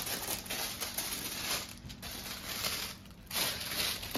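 Tissue paper rustling and crinkling as it is pulled open and unfolded by hand, in uneven bursts with a short lull near the three-second mark before a louder rustle.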